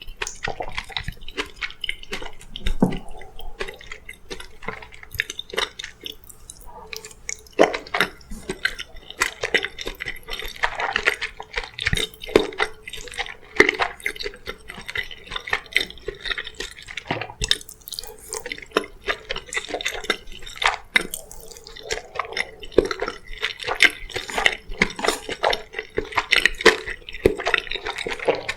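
Close-miked wet eating sounds: chewing and lip smacking with many small moist clicks, in a dense uneven run.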